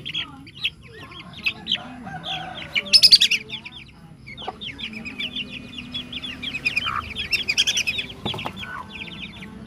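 Caged birds calling: rapid, high chirps, many overlapping, with a louder, harsh burst about three seconds in.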